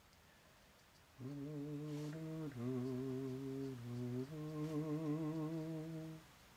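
A man humming a slow tune, a handful of held notes with a slight waver, stepping between pitches; it starts about a second in and stops about a second before the end. Faint scratches of a brush pen on paper lie underneath.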